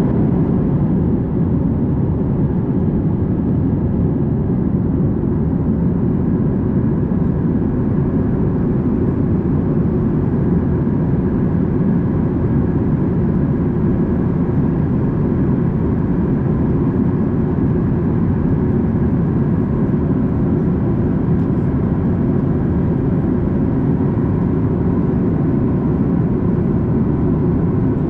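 Steady cabin roar inside a Boeing 737 MAX 8 in flight: the low rush of its CFM LEAP-1B engines and airflow over the fuselage, with a faint steady hum on top.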